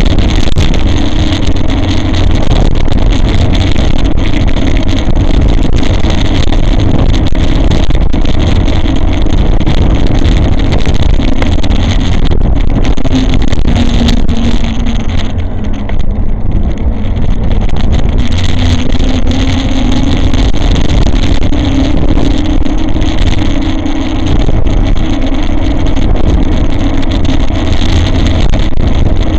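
E-bike riding along, heard from a bike-mounted camera: steady wind rush and road rumble, with the motor's hum dipping in pitch around the middle and rising again.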